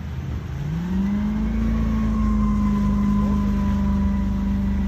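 Hummer H1 engine revving up sharply about half a second in, then held at steady high revs under load as the truck pushes through deep pond water with its wheels spinning and throwing spray.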